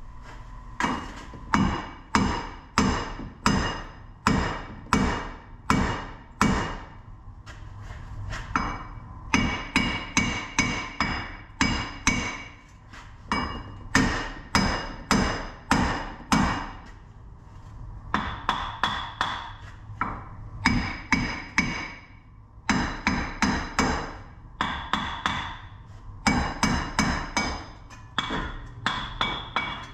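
Small hand hammer striking steel over and over to knock a seized hub bearing assembly loose from the steering knuckle, each blow ringing briefly. The blows come in quick runs of about two or three a second, with short pauses between runs.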